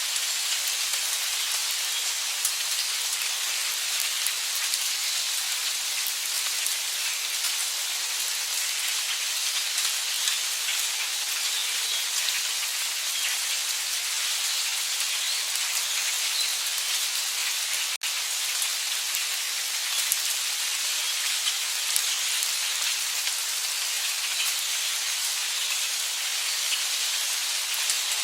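Heavy rain falling steadily: a dense, even hiss with scattered drop ticks. There is one brief dropout about two-thirds of the way through.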